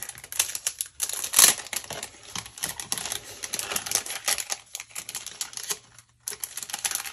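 Clear plastic packaging sleeve crinkling and crackling as it is handled, with a louder crackle about a second and a half in and a brief lull near the end.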